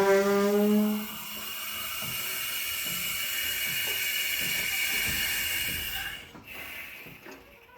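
Twin-post auto lift's single hydraulic ram groaning loudly in a slightly rising tone for about the first second, then a steady hydraulic hiss with a high whine that dies away about six seconds in. The groan comes with a heavy car on the lift and a newly replaced cylinder seal, and the owner takes it for a fault in the ram.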